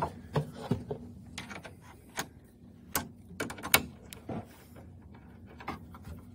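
Irregular, separate sharp metal clicks and knocks from a Wera Joker ratcheting combination wrench as it is handled and fitted onto a nut and bolt, about a dozen in all and spread over several seconds.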